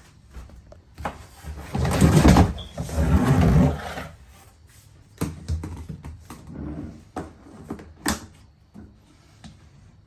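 Scraping and rattling for about two seconds, then scattered knocks and clicks, as shop vacuum parts are handled and fitted together.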